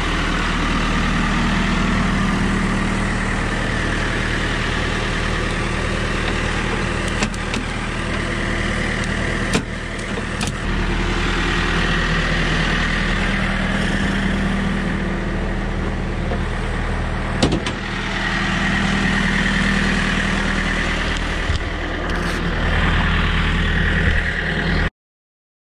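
An engine idling steadily, with a few short knocks and clicks over it; it cuts off suddenly near the end.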